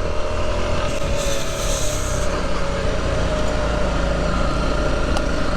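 Off-road motorcycle engine running steadily on a slippery dirt trail, with heavy wind rumble on the microphone and a brief hiss about a second in.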